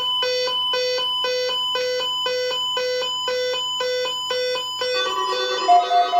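Electronic alert tone beeping about twice a second, the attention signal that opens a required weekly test on weather radio. About five seconds in, the beeps give way to a short run of musical tones.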